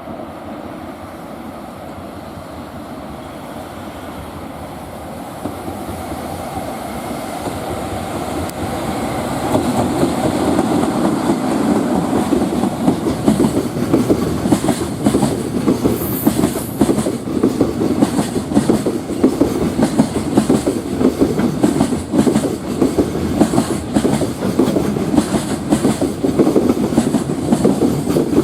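Freight train approaching and passing close by: the rumble builds over the first several seconds, then the wagons' wheels run over the rail joints in a steady, fast clickety-clack.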